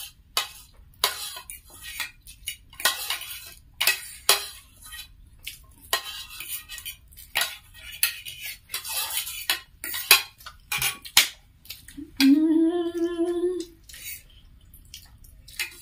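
Metal spoons and forks scraping and clinking against plastic plates in quick, irregular strokes as noodles are scooped up fast. About twelve seconds in, a person hums one held note for about a second and a half.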